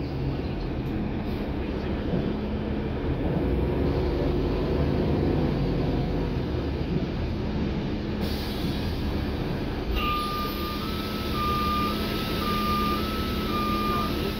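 NABI 416 transit bus running, heard from inside the cabin as a steady low engine and road rumble. About eight seconds in a steady air hiss starts, and about two seconds later an electronic beeper sounds in two alternating pitches, about two changes a second.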